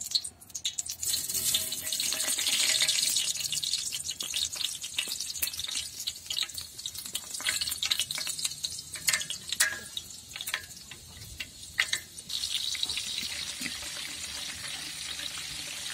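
Fenugreek seeds sizzling and crackling in hot oil. About twelve seconds in, a steadier, louder sizzle begins as chopped shallots go into the oil.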